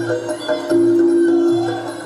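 Traditional Muay Thai ring music (sarama): a pi java oboe holding a high reedy note that breaks and repeats, over Thai drums and small ching cymbals ticking along.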